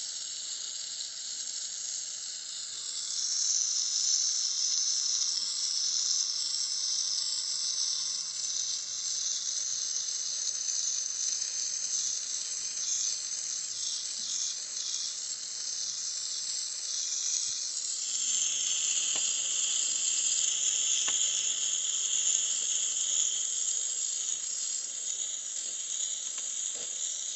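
Jeweller's gas torch flame hissing steadily as it heats a ring's seam to flow the solder. The hiss grows louder a few seconds in and shifts in tone about two-thirds of the way through as the flame changes.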